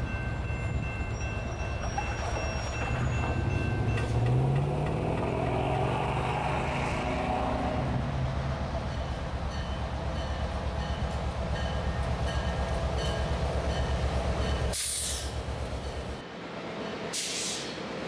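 EMD SD38-3 diesel road switcher running under load as it pulls covered hopper cars along the track, a steady low pulsing engine throb. The sound changes abruptly twice near the end, with short bursts of hiss.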